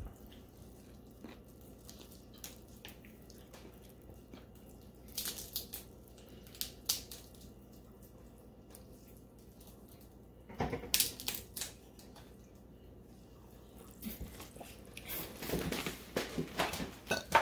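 Cooked shellfish shells being cracked and pulled apart by hand, along with chewing and sucking of the meat. The crackling comes in scattered bursts about five, eleven and fifteen seconds in.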